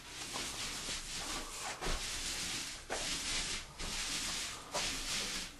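Thick-nap paint roller rolling PVA primer onto a textured ceiling: a wet, rasping hiss in back-and-forth strokes of about a second each, five in all, with short breaks as the roller changes direction.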